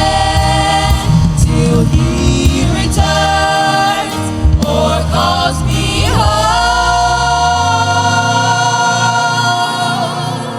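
Gospel worship music: a choir singing with a band, then closing on a long held chord from about six seconds in that begins to fade near the end.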